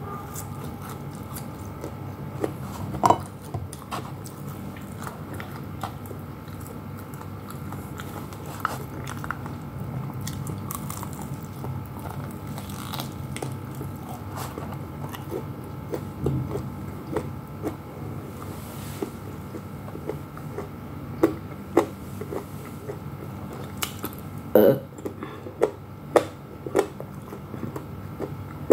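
Close-up chewing and biting of breaded fried chicken and rice, with sharp crunchy clicks at intervals, the loudest in a cluster near the end, over a steady low hum.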